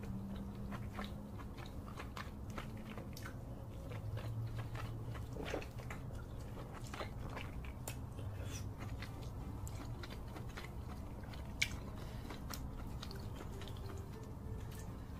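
Close-miked eating sounds: a person biting and chewing crab-leg meat dipped in cheese sauce, a string of small wet mouth clicks. One sharper click stands out about eleven and a half seconds in.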